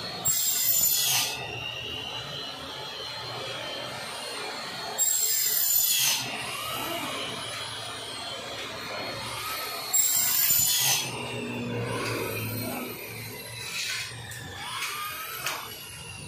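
Hand glass cutter scoring a sheet of glass along a straightedge: three high, scratchy strokes about a second long each, roughly five seconds apart, with fainter squeaks and clicks between them.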